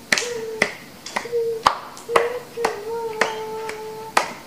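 Sharp clicks at a steady beat of about two a second, over a long held voice note.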